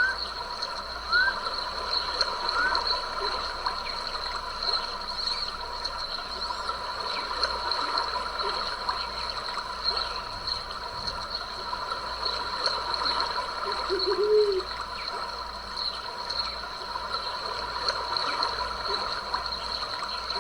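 A small stream trickling and splashing steadily, under a steady high chorus of calling animals. A few short rising chirps come in the first few seconds, and a single lower call comes near the middle.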